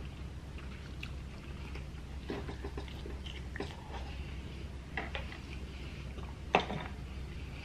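Chewing and mouth sounds of people eating, with scattered soft clicks and one sharper click about six and a half seconds in.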